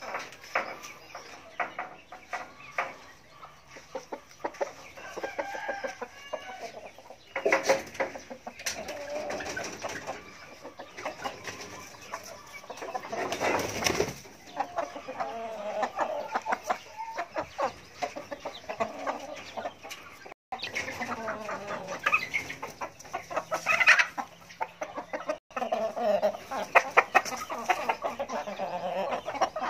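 Chickens clucking repeatedly, a rooster among white hens, with many short clicks and scratches. A brief rush of noise comes about halfway through.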